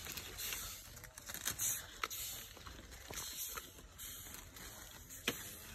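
Leafy branches rustling in uneven bursts as they are pulled and handled, with a few sharp clicks.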